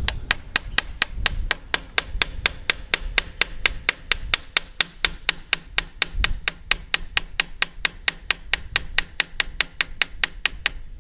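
Light metal-on-metal tapping, about five sharp taps a second in an even run that stops just before the end, driving the John Deere 2320's front spindle seal home while it still sits out a hair.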